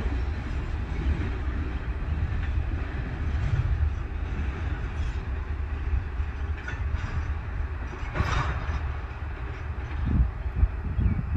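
Freight train rolling past, its wheels rumbling and clattering steadily on the rails. There is a brief louder burst of rattle about eight seconds in, and low thumps near the end.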